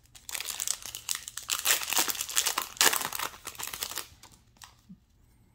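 Foil Yu-Gi-Oh! booster pack wrapper crinkling as it is opened and handled, a dense crackle that stops about four seconds in.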